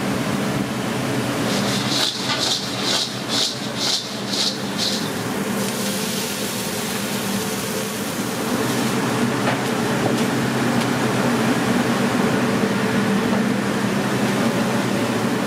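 Steady hum of commercial kitchen ventilation and fryers. Starting about two seconds in, French fries are tossed in a stainless steel bowl, about seven rhythmic rustling swishes, two a second; later a bread roll toasts on a flat-top griddle with a low, even sizzle.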